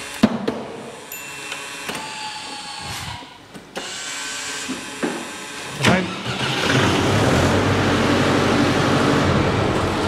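A few clicks and knocks, then about six seconds in the Arbos 2035 tractor's diesel engine is cranked, starts and settles into a steady idle.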